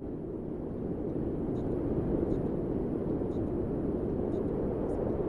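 Steady low wind noise, a deep even rush with no gusting breaks, swelling in over the first second or so.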